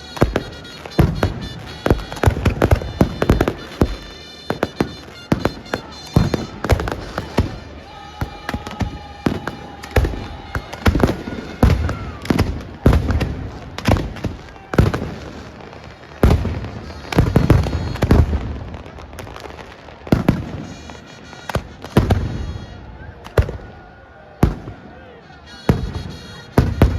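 Fireworks going off in a dense, continuous string of sharp bangs and crackles, several a second, with a brief steady tone heard among them about eight seconds in.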